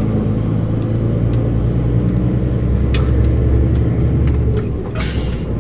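Diesel engine of a loaded tractor-trailer truck running under way, heard from inside the cab as a steady low drone with road noise. A few short clicks and rattles come through, the loudest about three and five seconds in.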